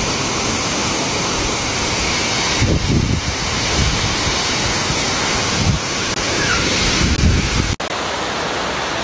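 Strong storm wind and heavy rain: a steady loud rush, with gusts buffeting the microphone now and then. Near the end it cuts off abruptly to a quieter, steadier rush.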